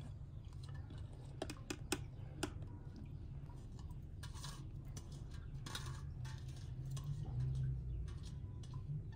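Food-preparation handling noises: scattered sharp clicks and taps, a cluster of them about one and a half to two and a half seconds in, and a couple of brief rustles later, over a steady low rumble.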